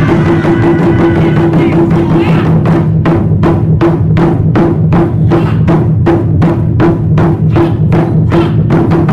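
Taiko ensemble of barrel-shaped chu-daiko and a large drum on a stand, beaten with wooden bachi in a loud, driving rhythm. The drum heads ring low under the hits, and from about three seconds in the strikes settle into an even beat of about three a second.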